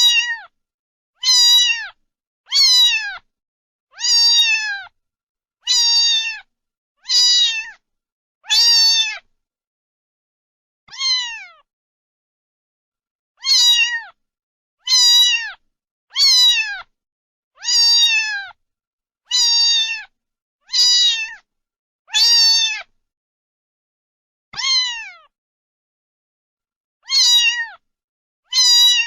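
A cat meowing again and again, nearly twenty short high meows about a second and a half apart, each falling in pitch at its end, with a few longer pauses between them.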